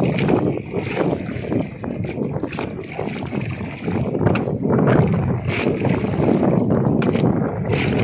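Wind buffeting the microphone over water sloshing against a wooden outrigger boat, with several sharp, irregular knocks of a wooden stick striking the back of a knife as it is driven through a king mackerel to cut it into steaks.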